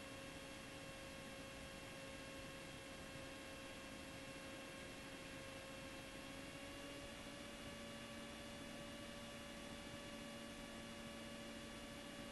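Cessna 172 in flight, heard faintly through the cockpit intercom audio feed: a steady hum with a few held tones over a soft hiss, a couple of the tones shifting slightly in pitch about seven seconds in.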